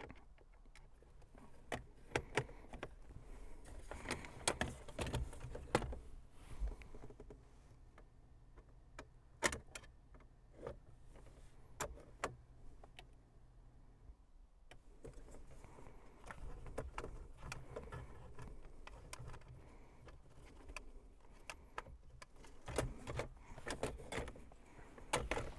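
Scattered clicks, knocks and rattles of hard plastic console trim and a screwdriver as the center console bezel and tray are fitted and screwed back in.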